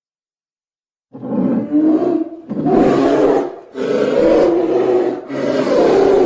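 Four rough, growling monster roars in a row, each lasting about a second, starting about a second in. This is a homemade vocal creature sound effect.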